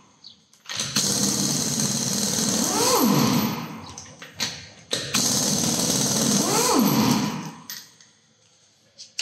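Impact wrench with a 21 mm socket hammering wheel nuts loose, in two bursts of about three seconds each, the pitch rising and then falling partway through each burst. A few short knocks fall between the bursts.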